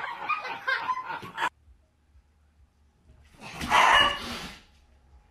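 A dog barking: one loud outburst about a second long, a little past the middle. Before it, people's voices cut off abruptly about one and a half seconds in.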